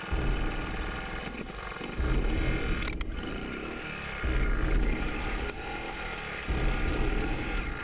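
Honda ATC 110 three-wheeler's small single-cylinder four-stroke engine running as it rides, with the sound surging louder four times, about two seconds apart.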